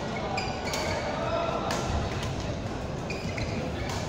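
Badminton hall ambience: a number of sharp, separate racket-on-shuttlecock hits from play on nearby courts, over a background murmur of voices.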